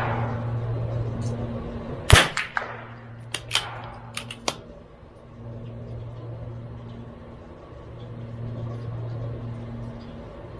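A CZ 457 MTR .22LR bolt-action rifle fires one shot about two seconds in. A quick run of sharp metallic clicks follows over the next couple of seconds as the bolt is cycled to eject the case and chamber the next round. A steady low hum runs underneath.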